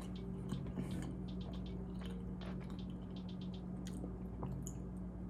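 Faint mouth sounds of someone chewing and sipping from a mug: scattered small wet clicks and smacks over a steady low hum.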